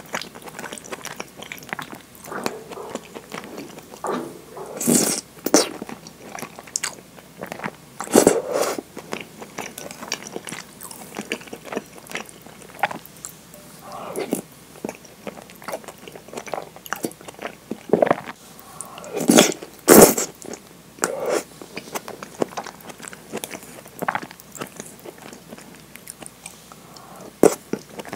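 Close-miked eating of thick curry udon: wet chewing with many small mouth clicks, broken by several louder slurps of the noodles, the loudest about two-thirds of the way through.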